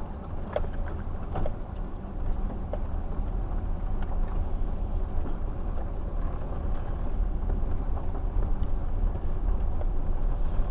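Steady low rumble of engine and road noise heard inside a moving 2012 Chevrolet conversion van, with a few faint clicks and rattles.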